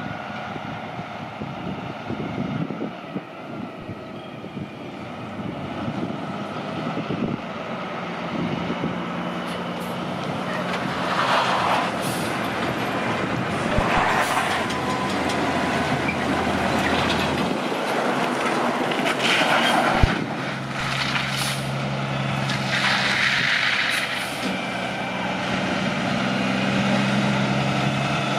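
Heavy diesel truck engine running steadily and slowly getting louder, with four short hisses of air typical of a truck's air brakes.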